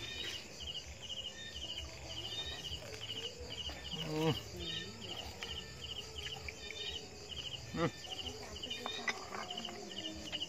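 Cricket chirping in short, regular pulses, about two a second.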